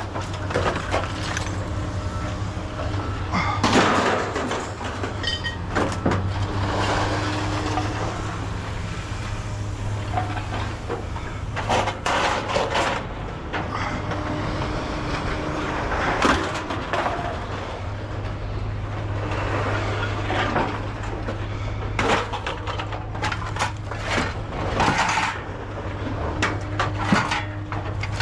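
Scrap being handled and sorted by hand: scattered clanks, knocks and rattles over a steady low hum.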